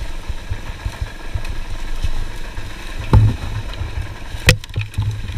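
Dirt bike engine running at low revs as the bike creeps down a steep trail. There is a heavy thump about three seconds in and a sharp knock about a second and a half later.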